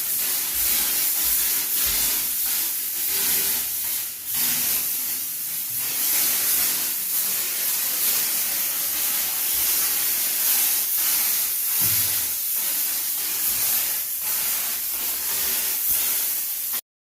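Steady hiss of a sprayer misting disinfectant for sterilisation and odour removal; it cuts off suddenly near the end.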